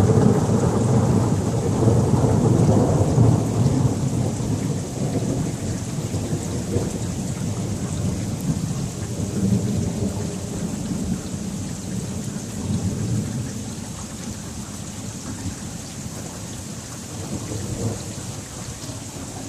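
A long roll of thunder, loudest in the first few seconds and rumbling away over the following ten seconds or so, over steady rain.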